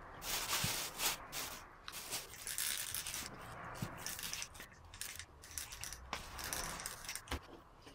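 Plastic bag crinkling and rustling as gloved hands move metal throttle-body parts around inside it, with short squirts from a trigger spray bottle of oven-cleaner degreaser. A few light knocks of the metal parts come through, about half a second in, near the middle and near the end.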